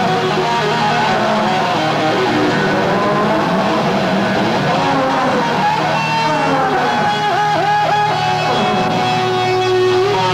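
Live heavy metal band playing loud, led by electric guitar; in the second half the guitar notes bend and slide up and down.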